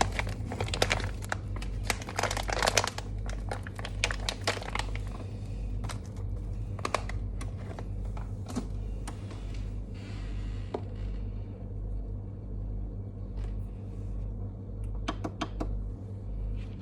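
Crinkling and sharp little clicks, dense for about the first five seconds and then scattered, over a steady low hum.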